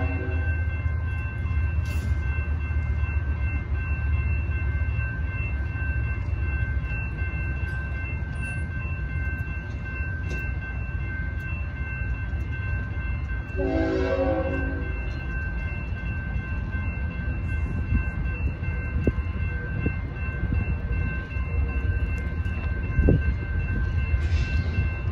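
Railroad crossing bell ringing steadily while the crossing gates are down, over a low rumble. About 14 seconds in, the approaching BNSF freight train's locomotive horn sounds one blast of about a second and a half.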